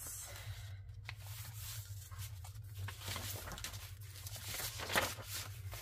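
Sheets of acrylic-painted paper and scrapbook paper rustling and sliding against each other as they are folded and moved on a tabletop, with a louder rustle about five seconds in.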